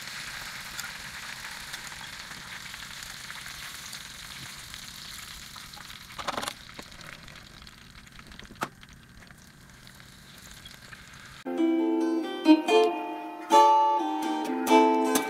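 Lumpia deep-frying in a pot of oil: a steady sizzle that slowly fades, with a knock about six seconds in and a sharp click just before nine seconds. About eleven seconds in, plucked string music starts and covers the rest.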